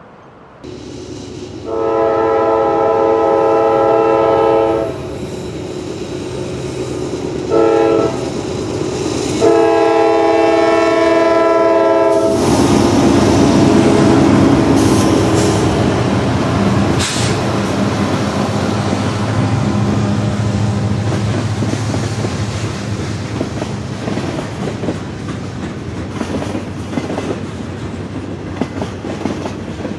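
Union Pacific freight train's air horn blowing a long blast, a short one and another long one. About twelve seconds in, the SD70ACe diesel-electric locomotives pass close by with a loud rumble, and then the freight cars rolling by with a steady clickety-clack over the rail joints.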